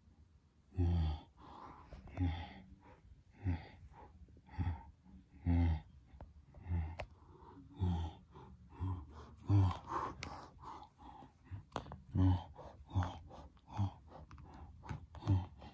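A person making hippo noises with their mouth to act out two hippos fighting: a string of short, uneven grunts and huffs, one or two a second.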